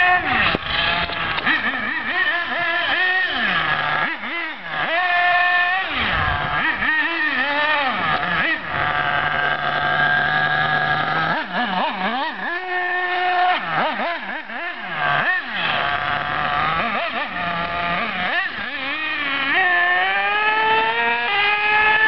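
Remote-control buggy's motor running hard, its pitch rising and falling again and again as the throttle is worked, and climbing steadily near the end as the buggy speeds up.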